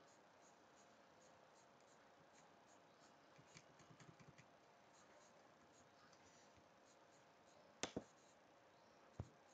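Near silence with faint room noise and a few faint rustles around the middle, then two sharp computer-mouse clicks close together about eight seconds in and one more click near the end: a right-click opening a slideshow menu, then a choice being clicked.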